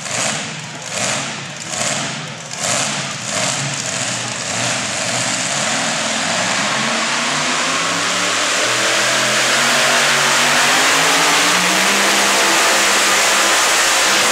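Supercharged, alcohol-burning modified 4x4 pulling truck engine, revved in short blips about once a second while staged, then held at full throttle under load as the truck pulls the sled, its pitch rising steadily through the last several seconds.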